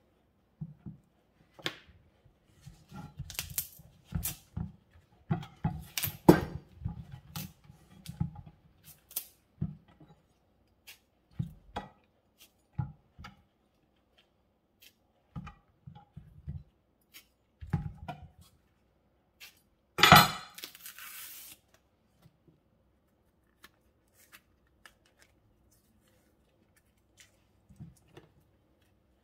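Bananas being peeled by hand at a chopping board: intermittent soft tearing of the peels with small knocks and clicks. One louder sharp sound with a short rustle comes about twenty seconds in.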